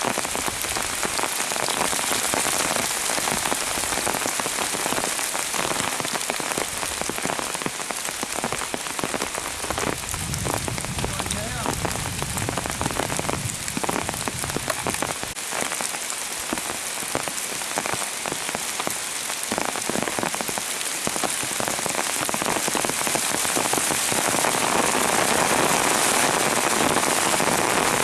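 Pouring rain falling steadily, with many single drops striking close by; it grows a little louder near the end.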